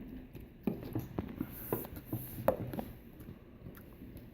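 Scattered light clicks and knocks of small toy surprise eggs being handled and wobbling about on a surface, about a dozen irregular taps.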